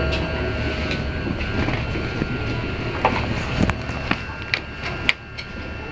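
Métro train running, heard from inside the car: a steady low rumble with a thin high whine, slowly fading as the train slows. Several sharp clicks and knocks in the second half.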